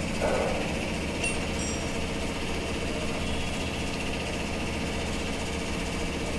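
Steady low mechanical hum of a running machine, even and unbroken throughout.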